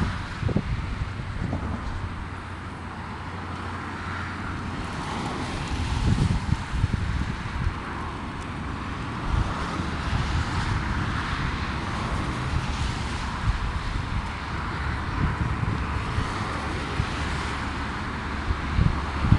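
Wind buffeting the microphone in irregular low gusts, over the faint, steady sound of a car moving slowly some distance away.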